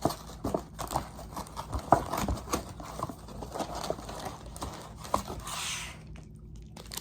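Plastic granola bar wrapper being handled and pulled open, crinkling in irregular clicks, with a longer tearing rustle about five and a half seconds in.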